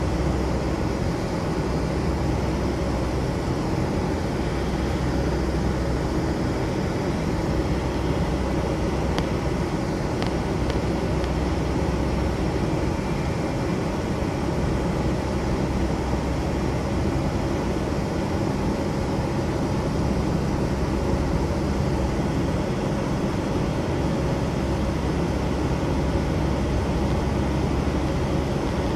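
Steady cabin roar inside a Boeing 757-232 during the climb after takeoff: its Pratt & Whitney PW2037 turbofans at climb power and air rushing past the fuselage, heard from a window seat over the wing.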